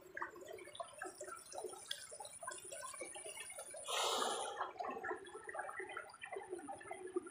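Water sloshing and dripping in many small, irregular plops, with one louder splash about four seconds in.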